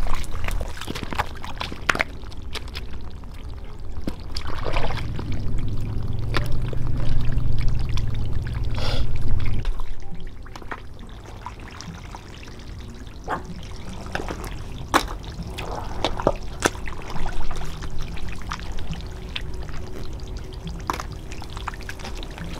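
Water pouring and splashing, with scattered clicks and knocks; a louder low rumble joins it from about five seconds in and stops just before ten seconds.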